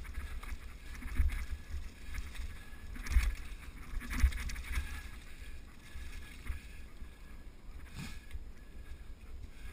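Mountain bike rolling over a leaf-covered dirt trail: tyres on dry leaves with the bike rattling and knocking over bumps, loudest about 1, 3 and 4 seconds in, over a steady low rumble of wind on the microphone.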